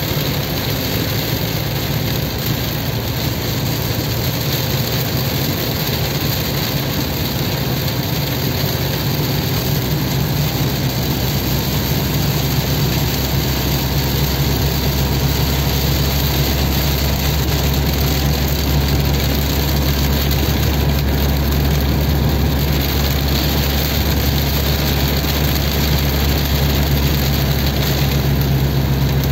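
Steady engine and road noise heard from inside a vehicle's cabin, driving through very heavy rain, with rain on the roof and windscreen. The low hum grows stronger about a third of the way in.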